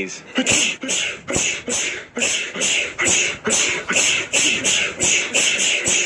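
A person sneezing over and over without a break, short sharp sneezes in rapid succession at about three a second.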